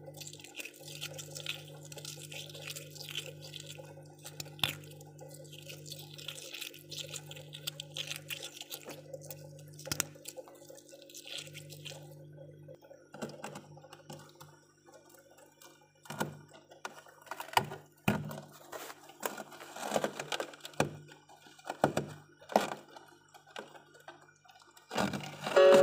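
Thick freezer frost being scraped and broken by hand: a series of sharp cracks and crunches from about sixteen seconds in, loudest near the end. Before them there is a stretch of low hum with a faint crackle.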